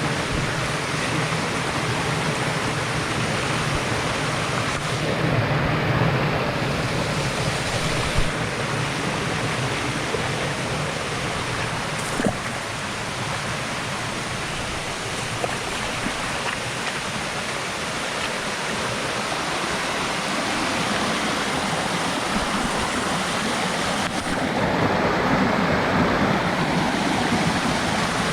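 Steady rush of flowing water from a stream or waterfall, swelling slightly near the end.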